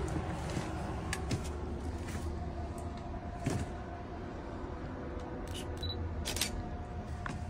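Handling noise from a handheld camera: a steady low rumble with a few faint clicks and knocks, the clearest about halfway through and again near the end.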